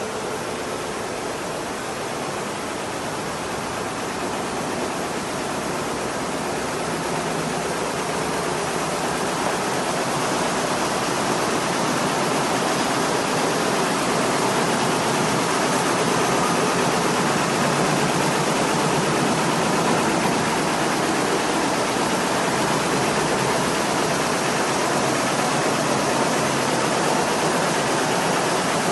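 Industrial quilting machines, among them a Richpeace multi-needle quilter, running with a steady mechanical noise that grows louder over the first half and then holds.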